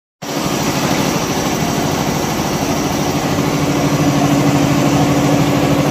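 Multi-head computerized embroidery machine stitching: a fast, steady mechanical clatter from its many needle heads, with a steady hum joining about two seconds in.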